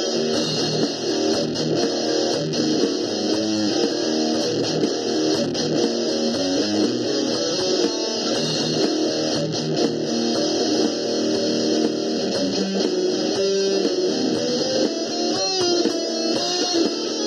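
Electric guitar being picked, playing a continuous line of quickly changing notes.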